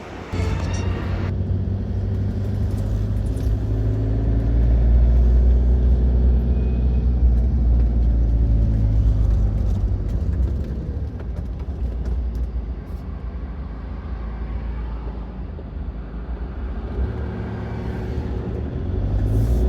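Campervan engine running with road noise while driving: a steady, loud low rumble whose engine note rises and falls as it speeds up and eases off.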